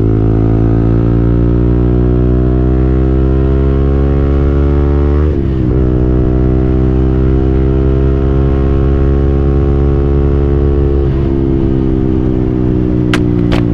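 KTM Duke 200's single-cylinder four-stroke engine accelerating: the pitch climbs steadily, drops sharply at an upshift about five seconds in, climbs again, then eases back and holds near the end. A few sharp clicks near the end.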